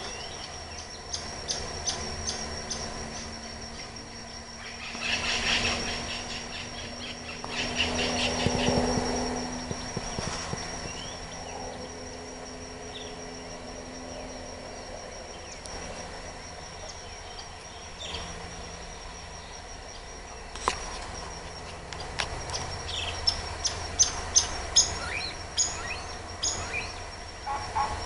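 Tropical forest birds calling at dawn: runs of short, sharp, repeated chirps, busiest a few seconds in and again in a dense burst near the end, over a steady high-pitched insect drone.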